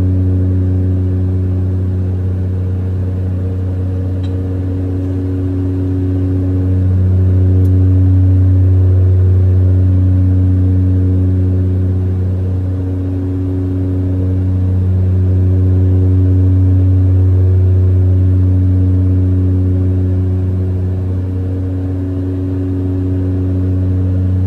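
Airliner engines heard from inside the cabin in flight: a steady low drone with a hum, slowly swelling and fading in loudness about every eight seconds.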